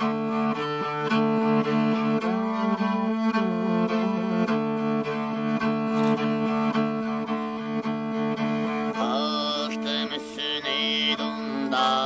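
Traditional Mongolian music: a bowed string instrument plays over a steady low drone. A singing voice with high, wavering tones comes in about nine seconds in.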